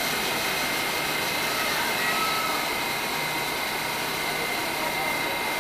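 R188 subway train standing at the platform with its doors open: a steady rushing hum from its ventilation and electrical equipment, with a thin high whine over it.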